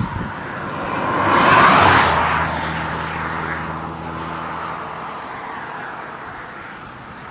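A motor vehicle passing close by on the road: tyre and engine noise swells to a peak about two seconds in, then fades away as a receding engine drone.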